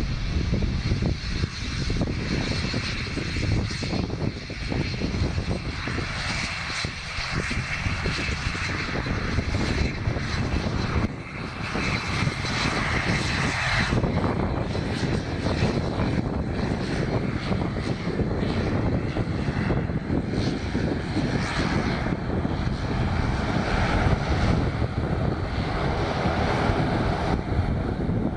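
Turboprop airliner's engines and propellers running, a steady high whine over a dense rushing noise, with gusty wind buffeting the microphone.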